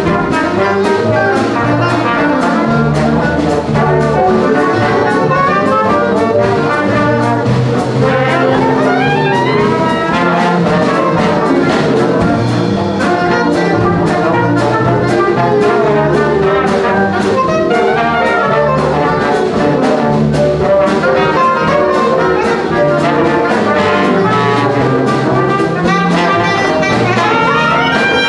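Jazz band playing live: trumpet, trombone and soprano saxophone over a rhythm section of guitar, keyboard, drums and double bass, with a steady beat.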